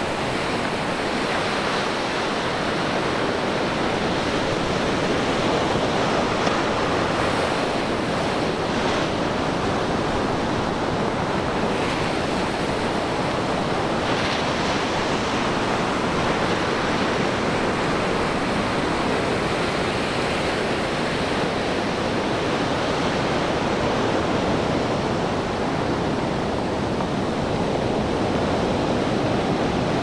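Sea surf breaking and washing up a pebbly sand beach: a continuous rushing noise of waves with no pauses, swelling slightly now and then.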